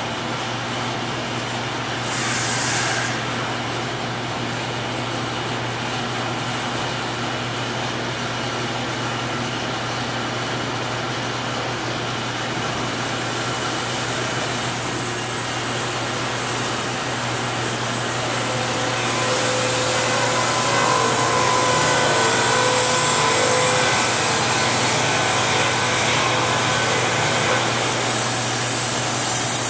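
Sawmill machinery running steadily: a Wood-Mizer LT50 portable band sawmill and a Morgan board edger, with a constant low motor hum under a hiss of cutting. The cutting noise grows brighter and a little louder about halfway through, with faint steady whining tones near the end.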